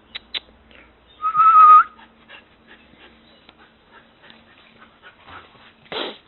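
A dog gives one high, steady whine lasting about half a second, turning up slightly at its end. Near the end comes a single short, harsh bark.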